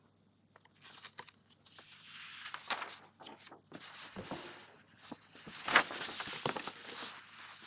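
Soft rustling of paper with a few light clicks, in short spells: notes being handled at a lectern close to its microphone.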